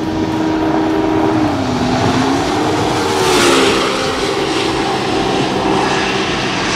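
Off-road race car's engine running hard as it approaches on a dirt road, its note dipping and rising as it shifts and lifts. It passes close about three and a half seconds in with a rush of noise.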